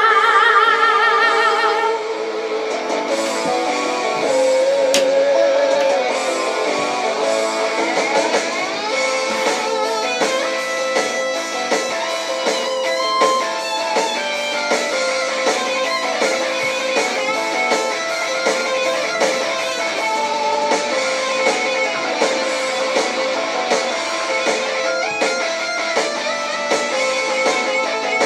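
Heavy metal karaoke backing track in an instrumental break: fast electric guitar lines over a steady beat. A long sung note with vibrato ends about two seconds in.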